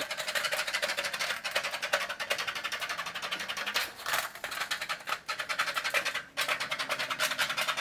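Right-hand tin snips cutting a corrugated Colorbond steel roofing sheet along the corrugation: a fast run of crisp metallic snipping clicks as the blades chew through the steel, with a couple of brief breaks.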